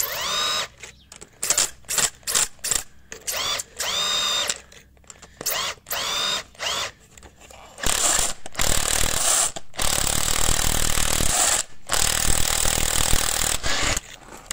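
Power tool driving a socket on the nut atop a BMW E36 front shock-absorber rod, undoing it to free the top mount. A string of short trigger pulls, each with a rising whine, then from about eight seconds in longer, louder runs broken by two short pauses, stopping just before the end.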